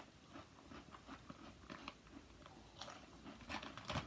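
Someone chewing a mouthful of ridged potato chips (Old Dutch Ridges Honey BBQ): soft, irregular crunches, a little louder near the end.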